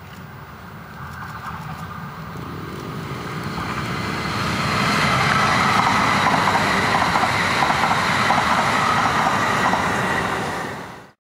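E3-700 series mini-shinkansen electric train passing at speed on the rails, its running noise building over the first few seconds and holding loud as the cars go by, then cutting off suddenly near the end.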